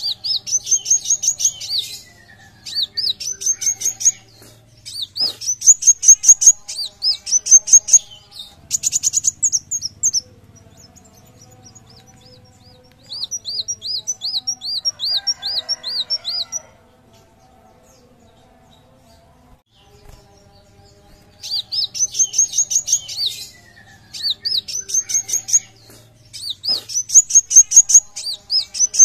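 Kolibri wulung (sunbird) singing: phrases of a second or two made of quick, rising high whistled notes, repeated with short gaps. Midway there is a slower run of about ten notes, then a pause of a few seconds before the phrases resume.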